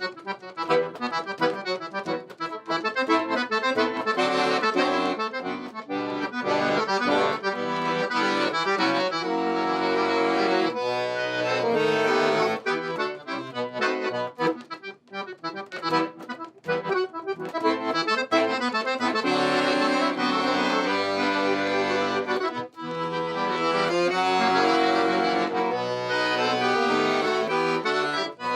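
Accordion playing an instrumental melody with chords.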